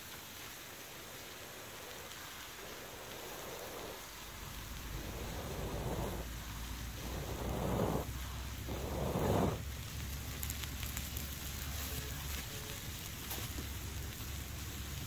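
A person blowing on the embers of a small wood fire under a cast-iron pan to revive it: a series of long puffs in the middle, the last two loudest, with a low rumble of breath on the microphone. A steady sizzling hiss from the prawns on the hot pan runs underneath.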